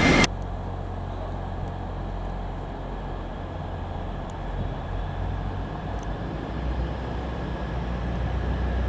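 Steady low engine rumble, with a faint steady tone above it, growing stronger over the last two seconds. It starts abruptly just after a moment of much louder train noise.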